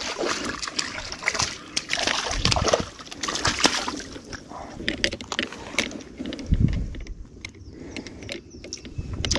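A hooked crappie splashing and thrashing at the water's surface as it is played in and lifted out, with water sloshing around it in irregular splashes that are busiest in the first half.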